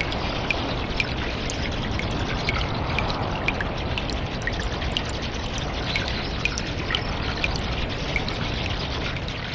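Cave water ambience: a steady trickle of running water with sharp drips falling several times a second, echoing in the cave.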